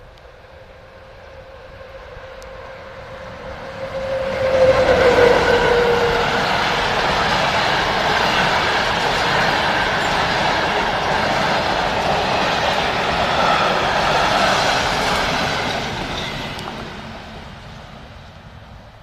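Passenger train passing at speed. A single tone grows as the locomotive approaches and drops in pitch as it goes by about five seconds in. Then comes the loud, steady rush of the carriages on the rails for about ten seconds, fading away as the train recedes.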